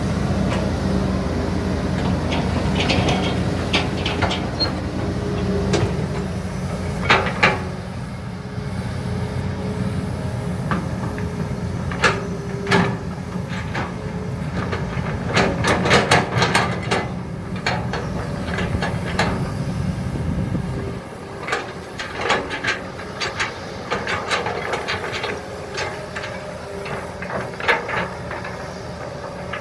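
Diesel hydraulic crawler excavators digging a wet ditch: engines running, with repeated clanks and knocks as the buckets bite and dump soil. The low engine drone drops away about two-thirds of the way through, leaving the knocks and scrapes.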